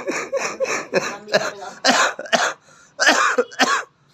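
A child coughing: a string of about a dozen short, quick coughs, with a short break about two and a half seconds in.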